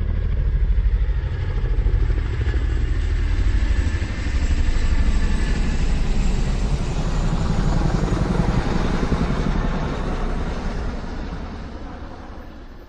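A motor vehicle's engine running: a loud, pulsing low rumble that fades away over the last couple of seconds.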